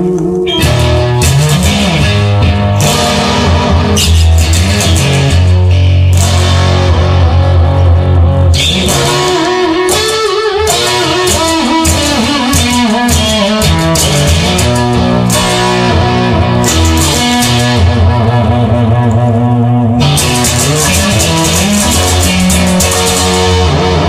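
Rock music: electric guitar over bass and a steady drum beat, with no singing.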